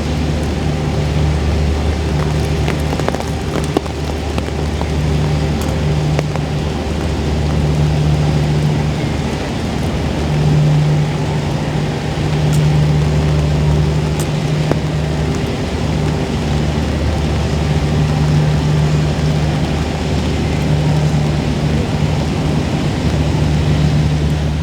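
A large engine running steadily with a low hum that swells and eases at times, over the hiss of rain.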